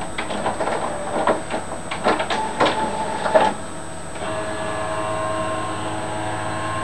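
Clicks and knocks of handling, then about four seconds in a microwave oven starts running with a steady, even hum.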